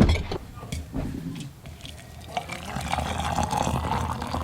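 A knock, then water running, from about two seconds in, in a steady rush.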